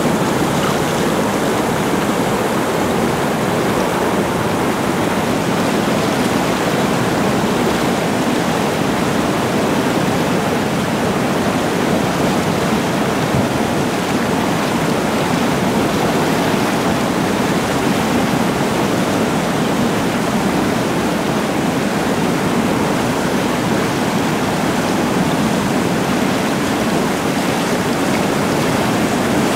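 Whitewater rapids rushing steadily, a dense, unbroken river noise.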